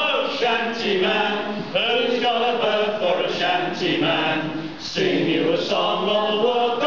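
A group of men singing a sea shanty in chorus, unaccompanied.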